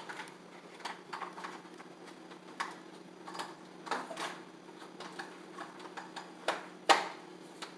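Scattered light plastic clicks and taps as the valance on a white horizontal window blind's headrail is pressed into place and adjusted by hand, at irregular intervals, the sharpest click about seven seconds in. A faint steady hum runs underneath.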